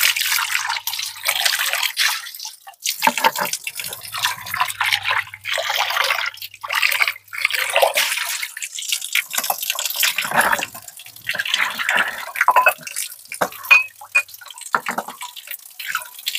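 Water running from a wall tap and splashing as bowls are rinsed under the stream over a concrete sink, the splashing rising and falling unevenly as the bowls are turned and moved.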